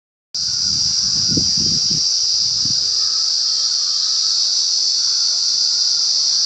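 Insects buzzing in the trees: a loud, steady high-pitched drone that starts abruptly just after the beginning. A few low thuds come between about one and three seconds in.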